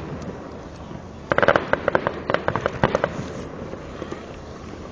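Aerial fireworks bursting: a cluster of bangs about a second and a half in, then a quick run of sharp crackling pops over the next second and a half.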